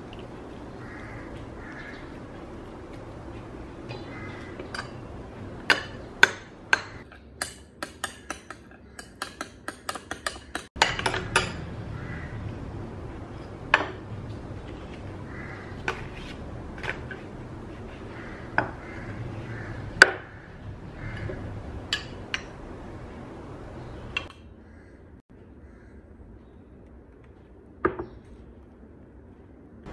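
A metal spoon clinking and scraping against a small glass bowl as a mayonnaise and lemon sauce is stirred. A quick run of clinks comes in the middle, about four a second, then single sharper knocks of the spoon on the glass.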